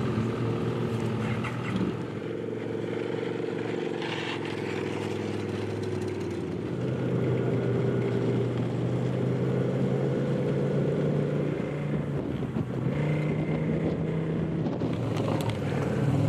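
Ski-Doo snowmobile engines running steadily. The engine note shifts in pitch about two seconds in and again around six seconds in.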